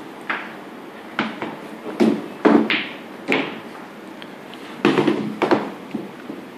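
A dozen or so irregular knocks and thuds, in clusters, as a dog paws and scrambles at small balls on a homemade felt-covered wooden billiard board.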